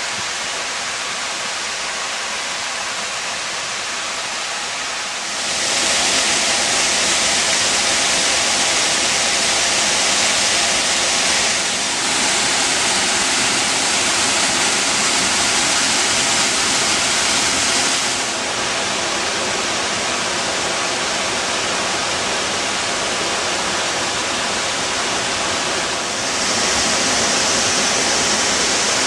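Waterfall pouring steadily, a continuous rush of falling water. It grows louder about five seconds in, drops back somewhat later, and rises again near the end.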